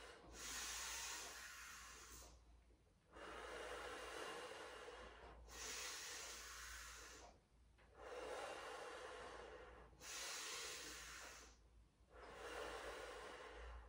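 A woman's slow, deep yogic breathing, heard as six long breaths of about two seconds each, in and out alternately, with short pauses between. The breath is timed to slow lateral arm raises.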